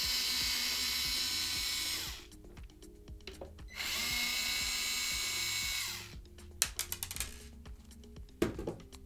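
Small electric screwdriver backing screws out of an Xbox Series X's back panel: its motor whines steadily for about two seconds, stops, then runs again for about two seconds. A quick rattle of clicks follows, then a single knock near the end.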